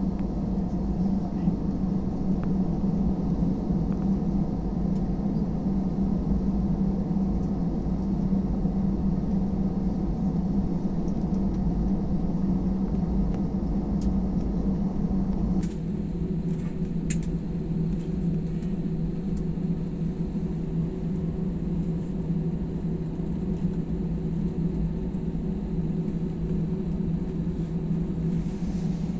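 Steady drone of an airliner's engines and airflow heard inside the passenger cabin, with a strong low hum. The sound shifts abruptly and drops slightly a little past halfway.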